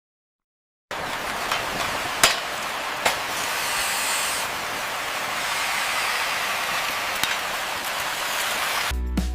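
A steady, loud spray-like hiss starting about a second in, with a few sharp knocks, then music with a beat comes in near the end.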